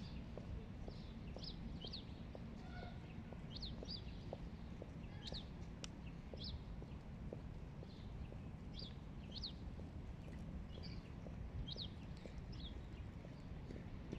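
Hooded crow pecking at a piece of raw chicken on icy snow: soft, irregular beak taps. Small birds chirp in short high notes, often in pairs, every second or so, over a steady low rumble.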